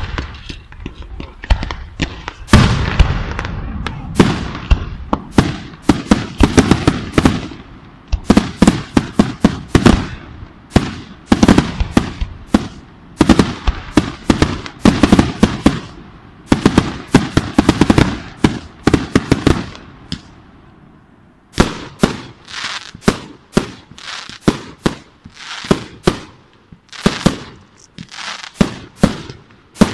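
Aerial fireworks shells bursting in a dense, rapid series of sharp bangs. After a short lull about twenty seconds in, the bursts come as separate loud reports, one or two a second.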